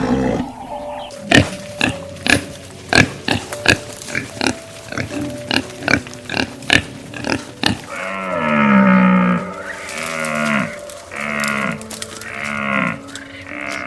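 Farm animal calls: a run of short, sharp grunt-like sounds, then four wavering bleat-like calls, each about a second long and falling in pitch.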